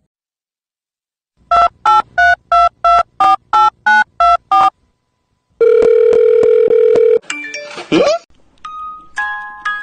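Electronic beeps: about nine short beeps, roughly three a second, then a steady beep tone lasting about a second and a half, then a quick sliding sound and a run of short electronic notes.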